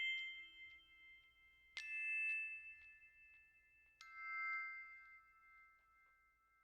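Background music ending: three bell-like struck chords about two seconds apart, each ringing out, the last one fading away.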